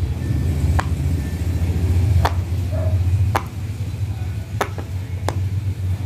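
Silicone pop-it fidget toy bubbles being pressed in with a finger, giving five short, sharp pops a second or so apart, over a steady low hum.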